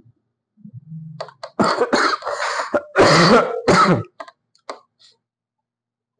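A person clearing their throat and coughing in a string of loud bursts over about two and a half seconds, after a short low hum.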